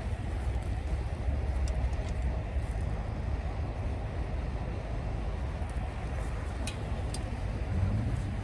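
Steady low outdoor rumble with no clear single source, with a few faint short ticks, two of them close together near the end.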